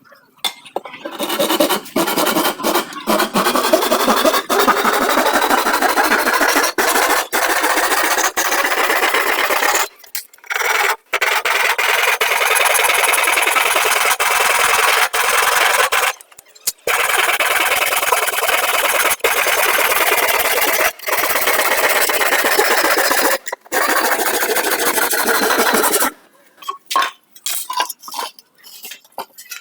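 Woodworking tool abrading wood: a loud, continuous rasping rub in long unbroken stretches with a few short breaks, turning into choppy short strokes near the end.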